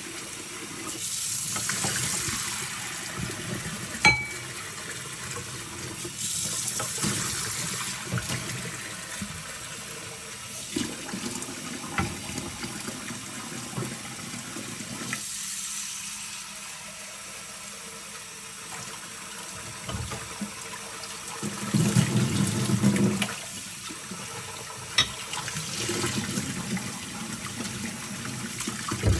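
Kitchen tap running into a sink while glass bowls and dishes are pre-rinsed under the stream, the water noise swelling and easing as dishes pass through it, with a few sharp clinks of dishes knocking together.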